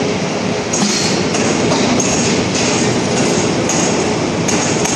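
Steady din of factory machinery, with short bright hissing bursts recurring every half second or so.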